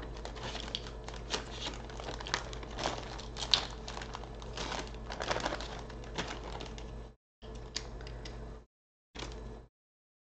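Plastic zipper freezer bag crinkling and rustling as it is handled, with many small irregular clicks and crackles. The sound breaks off abruptly several times in the last few seconds.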